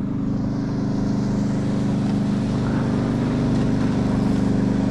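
A boat's outboard motor running at a steady speed, its pitch holding level while it grows slightly louder.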